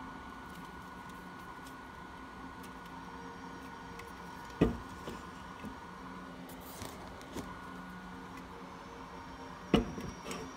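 Unopened aluminium beer cans set down one at a time on a tabletop: two sharp knocks about five seconds apart, the second near the end, with a few lighter taps and a faint steady hum underneath.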